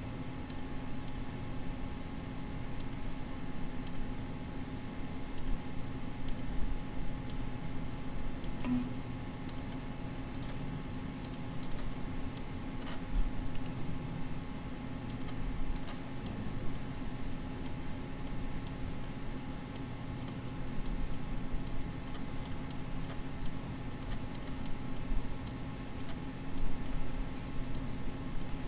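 Computer mouse clicking at irregular intervals, scattered single clicks over a steady low hum.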